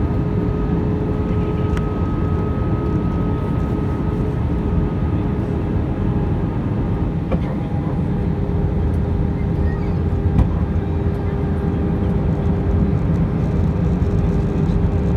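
Airbus A320 cabin noise on approach: a steady, loud rumble of engines and airflow with a few steady tones in it, one of which changes pitch about five seconds in.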